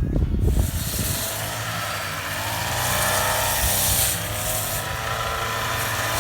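Small engine of a handheld rice cutter (brush-cutter type) running while cutting rice, starting about half a second in, its pitch wavering up and down as it works.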